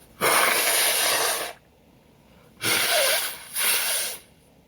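A man sneezing: one long sneeze just after the start, then two shorter sneezes close together past the middle.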